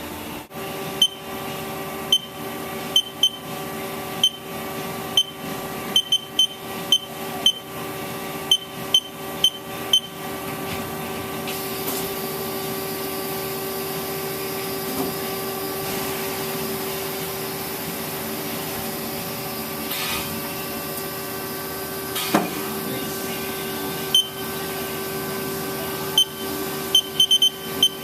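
A 2008 Haas SL-20T CNC lathe running with a steady hum that grows slightly louder about twelve seconds in. Over the hum come short, high electronic beeps in quick irregular runs through the first ten seconds and again near the end.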